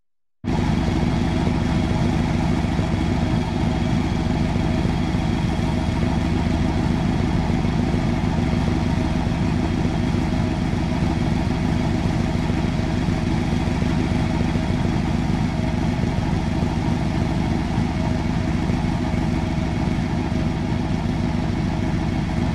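Chevrolet Chevelle SS's V8 idling steadily through its exhaust, with no revving; it comes in about half a second in after a moment of silence.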